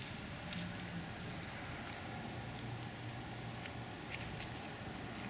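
Steady outdoor background: an unbroken high-pitched insect-like drone over a low steady hum, with a few faint clicks.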